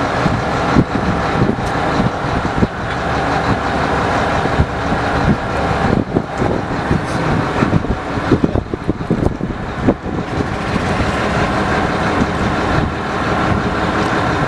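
A fishing boat's engine running steadily, with scattered knocks and clatter on deck.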